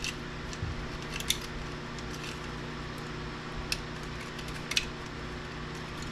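A handful of sharp, scattered clicks and snaps of small plastic and metal parts being worked loose while a DVD player mechanism is taken apart by hand, over a steady low hum.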